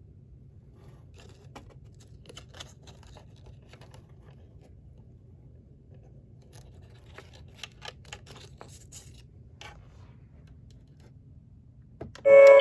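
Faint scattered clicks and scrapes over a low hum. Near the end, the Gemmy animated crystal ball ghost girl doorbell sets off loudly through its small speaker, with a held tone and the start of a girl's synthetic-sounding singing.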